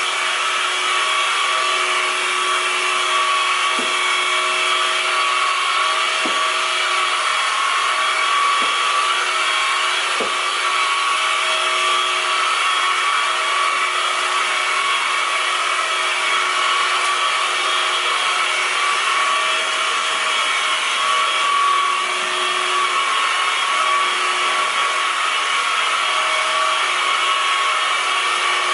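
Steady mechanical whirring with several held tones over a noisy hiss, continuous and even in level, with a few faint knocks in the first ten seconds.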